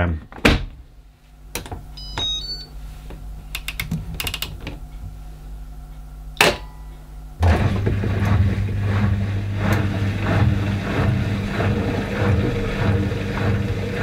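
AEG 8000 Series front-loading washing machine being started: a few clicks and a short run of control-panel beeps as the programme is set, then a loud click. About halfway through a steady low hum sets in with regular swishing as the machine begins its wash cycle, water filling and the drum turning the load.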